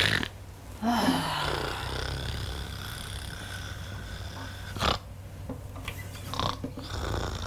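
A man snoring loudly and theatrically: a long snore falling in pitch about a second in, then short snorts around five and six and a half seconds in.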